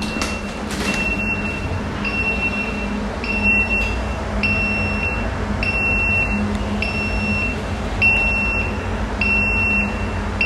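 Kitchen gas leak alarm sounding, a high-pitched beep repeating about once a second, over a steady low hum and background noise.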